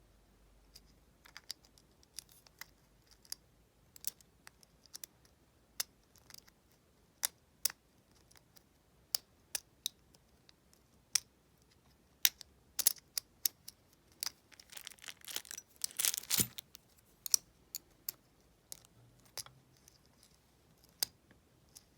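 Lock picks working in the cylinder of a light, thin-metal double-cylinder deadbolt: scattered small metallic clicks and ticks, with a short stretch of rapid scraping clicks a little after halfway.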